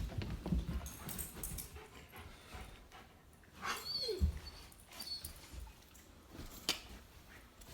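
A dog whimpering, with a few short high whines about halfway through, among a few faint knocks.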